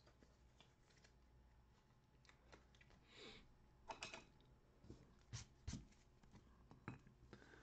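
Faint clicks and taps of trading cards and small clear plastic card stands being handled and set down, with a short soft rustle about three seconds in.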